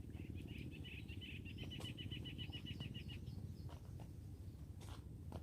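A bird calling a rapid, even trill of high notes, about eight a second, lasting about three seconds, over a steady low rumble.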